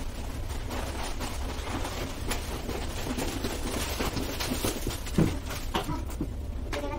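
Footsteps and scattered knocks on a wooden floor as a wooden chair is carried in and set down, with one sharper thump about five seconds in, over a steady low hum.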